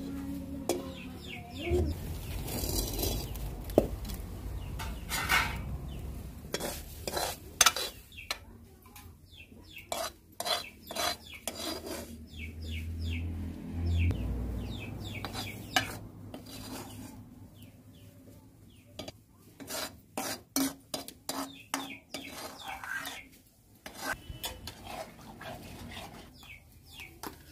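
Steel ladle stirring and scraping in a metal wok, a run of irregular scrapes and clinks of metal on metal.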